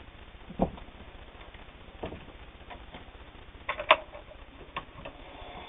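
A few scattered light clicks and knocks, with a quick double click about four seconds in, from handling at a stopped sewing machine after stitching heavy denim.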